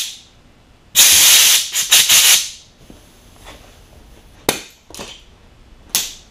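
Compressed-air blow gun hissing as it blows out a freshly cut braided AN hose to clear particles from it. One long blast comes about a second in, and a few short bursts follow near the end.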